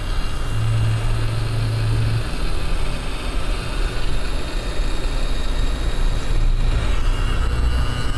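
Hot air rework station blowing on a laptop motherboard to desolder a shorted capacitor: a steady rush of air with a low hum that swells and fades.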